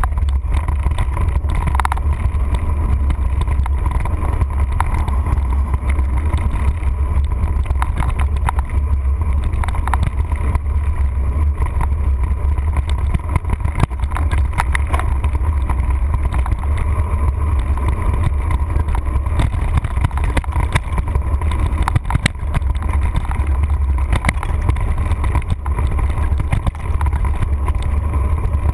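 Mountain bike rolling along a dirt trail, heard from a camera clamped to the handlebars: a steady, loud low rumble of wind and vibration, with frequent small knocks and rattles as the bike goes over bumps.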